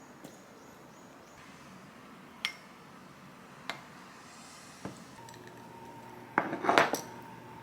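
Dishes and cutlery clinking: three light single clinks spaced about a second apart, then a short flurry of louder clatters near the end.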